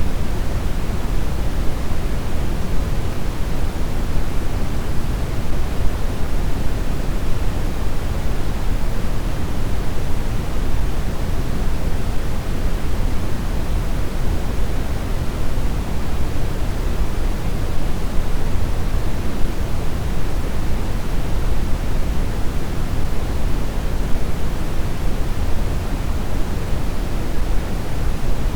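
Steady brown noise: a continuous, even hiss weighted heavily toward the deep low end, without change.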